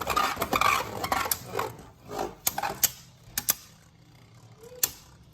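Beyblade Burst spinning tops clashing in a plastic stadium: a rapid clicking rattle of plastic on plastic for about the first two seconds. After that come a few separate sharp clicks as the tops knock together less often.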